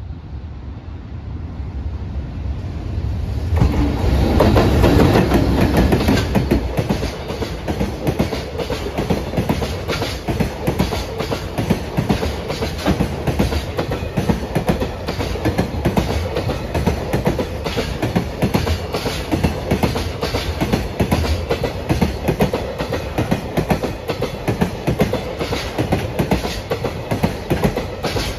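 Container freight train hauled by an EH500 electric locomotive approaching and passing close by. The rumble builds over the first few seconds and is loudest as the locomotive goes past. A long line of Koki container wagons then rolls by, wheels clacking rhythmically on the rails.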